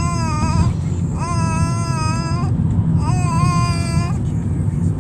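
A dog whining in long, high, drawn-out cries of about a second each, three in a row, over the steady low rumble of the moving car.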